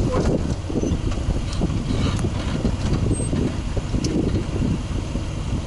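Steady low rumble of engine and tyres heard from inside the cabin of a moving Mercedes-Benz X-Class pickup.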